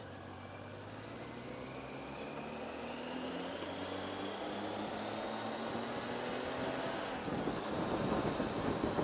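Triumph Tiger 800's three-cylinder engine heard from on board, its pitch climbing slowly as the motorcycle accelerates out of a bend. About seven seconds in, gusty wind buffeting on the microphone takes over as the speed builds.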